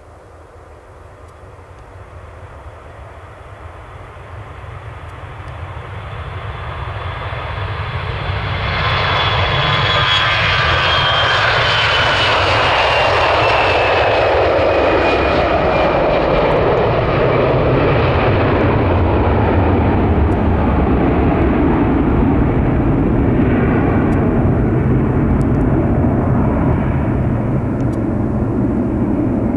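Airbus A321 jet engines at takeoff thrust as the airliner rolls past and climbs out. The sound grows louder over the first nine seconds or so, then holds as a steady roar, with a high whine that falls in pitch as the aircraft goes by.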